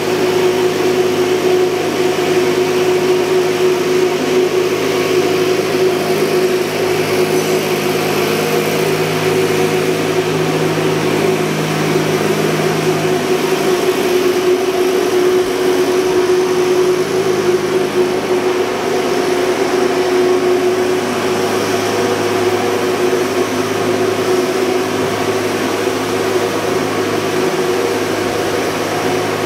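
Steady drone of a ship's engine-room machinery running: a constant loud hum with several fixed tones over a noisy haze. Part of the lower hum drops out about halfway through.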